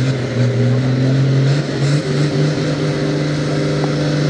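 Engine of a competition pulling tractor held at high revs, a loud, steady note that barely changes in pitch.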